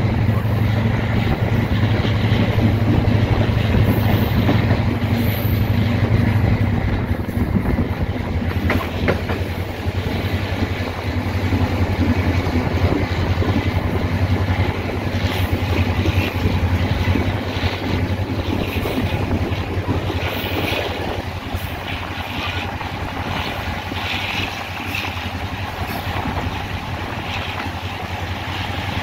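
EMD GL18B diesel locomotive hauling a passenger train, its engine running with a steady low hum over the rumble and clatter of wheels on rail. About two-thirds of the way in the sound eases slightly.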